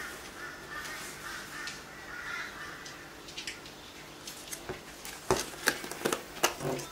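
A plastic slime tub being handled and its lid taken off, then the slime inside poked, giving a run of sharp clicks and pops over the last two seconds or so. A faint, high, wavering sound is heard in the first few seconds.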